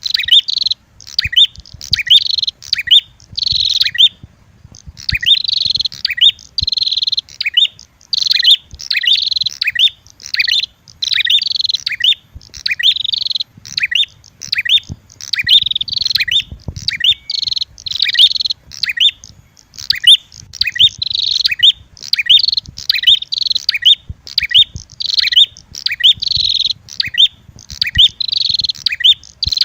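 Prenjak (prinia) lure calls: an unbroken run of sharp, loud chirps, roughly one or two a second with brief pauses, mixing the red-headed prenjak's call with female prenjak fighting calls.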